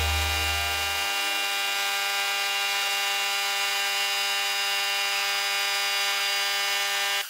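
Steady whine over a hiss from the spray gun's air supply running. A deep low hum under it stops about a second in, and the sound cuts off abruptly at the end.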